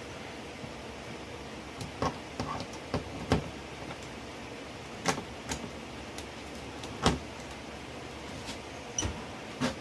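Hand pop-rivet tool being squeezed stroke after stroke, a series of sharp clicks at uneven intervals, as a rivet is pulled through plastic and a metal bracket, over a steady low hiss.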